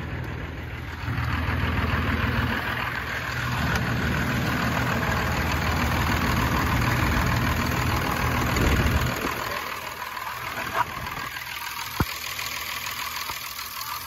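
24-valve Cummins inline-six diesel idling steadily. About nine seconds in the engine sound drops away, followed by two sharp clicks.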